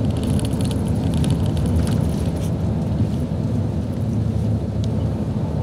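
Steady engine and road noise inside the cabin of a 1994 Hino U-RU2FTAB high-decker coach under way, with a scatter of light clicks in the first couple of seconds.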